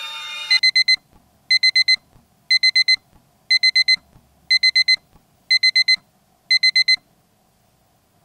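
Digital alarm clock beeping in quick groups of four high beeps, about one group a second, seven groups in all, then stopping.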